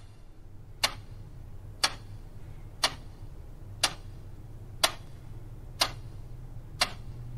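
A clock ticking, one sharp tick each second, over a low steady hum.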